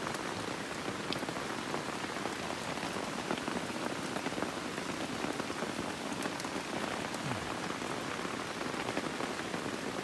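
Steady rain falling on the forest and on the bushcraft shelter, heard from inside it: an even hiss with many single drops ticking through it.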